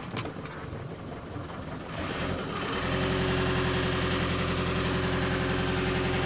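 Sailing yacht's inboard engine running steadily while motoring in a calm, growing noticeably louder about two to three seconds in and then cutting off abruptly.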